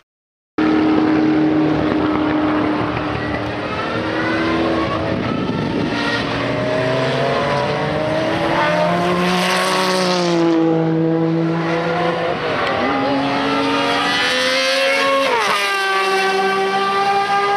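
Matra 670's 3-litre V12 racing engine at high revs, its note climbing and dropping repeatedly as the car is driven hard past trackside. The sound cuts in after a half-second gap, and a sharp swoop in pitch comes near the end.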